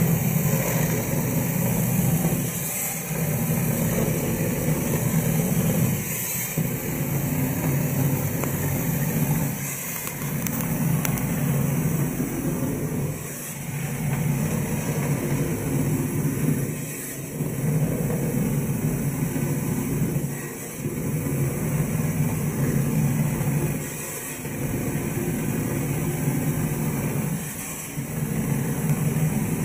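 Shotcrete being sprayed from a hose nozzle: a steady hiss over the low drone of the pumping machinery. The drone dips briefly about every three and a half seconds.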